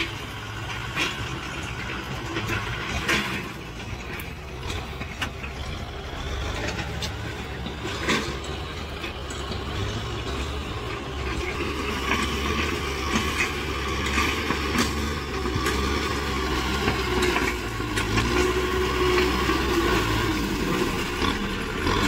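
Kubota M6040 tractor's four-cylinder diesel engine running steadily while the tractor pushes loose soil with its front dozer blade, with a few sharp knocks; the engine grows louder through the second half as the tractor comes closer.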